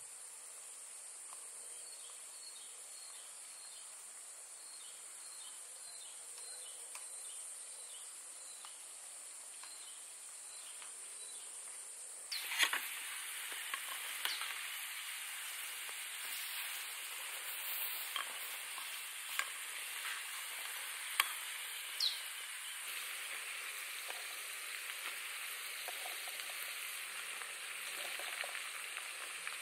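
Insects keep up a steady high hum with a faint repeated chirp. About twelve seconds in this gives way to food sizzling in a camping pan on a portable stove, with sharp clinks and scrapes of a metal spoon against the aluminium cookware.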